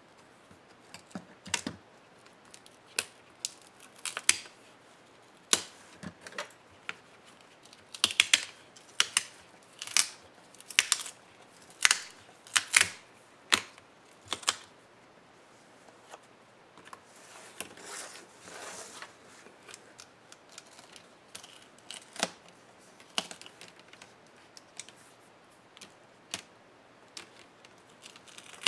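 Plastic clips of a laptop's screen bezel clicking and snapping loose as the bezel is pried off the display lid. A quick run of sharp clicks fills the first half, then a softer scraping rustle, then scattered clicks.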